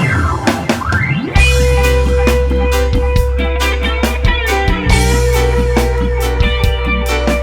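Background rock music with guitar, drums and a steady deep bass, opening with sweeping pitch glides before the bass comes in about a second and a half in.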